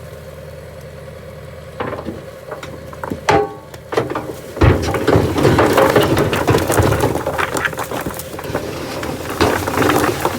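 Rocks tumbling and clattering out of a Remlinger rock picker's raised dump box: a few separate knocks at first, then a dense clatter from about four and a half seconds in. A John Deere 6430 tractor's diesel engine runs underneath.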